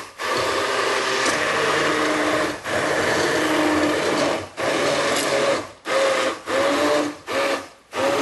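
Immersion blender motor whirring as it purées thick pumpkin soup in a pot, its pitch wavering under the load. It is pulsed, cutting out briefly several times and more often near the end.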